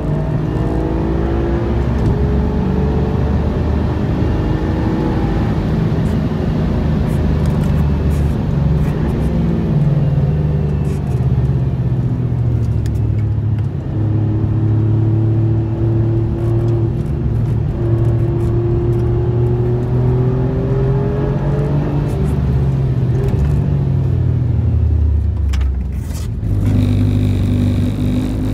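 Alfa Romeo Giulia Quadrifoglio's twin-turbo V6, heard from inside the cabin, pulling hard with its pitch climbing and stepping through gear changes, then falling as the car slows near the end.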